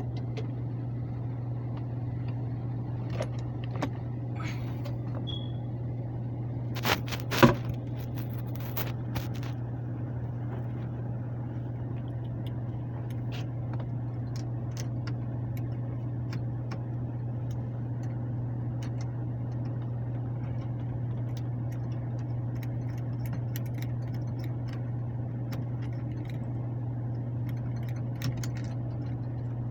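Air handler blower running steadily with a low hum. A brief clatter about seven seconds in, the loudest thing here, and scattered light clicks.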